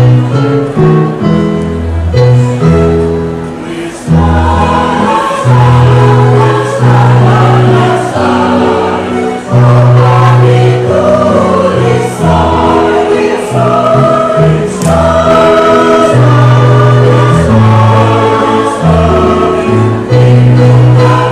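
Mixed amateur choir singing a song in parts, with electronic keyboard accompaniment holding steady low notes beneath the voices.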